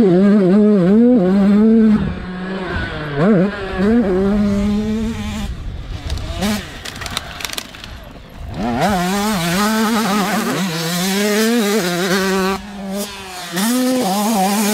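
Husqvarna TC85 85cc two-stroke motocross bike engine revving hard on the track. Its pitch climbs and drops again and again as the rider works the throttle and shifts. The engine grows quieter from about six seconds in and comes back loud about two and a half seconds later.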